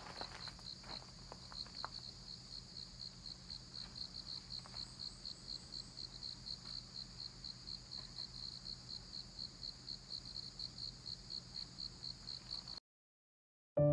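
An insect chirping in a steady rhythm, about four short high chirps a second, over a faint low hum; the sound cuts out about a second before the end.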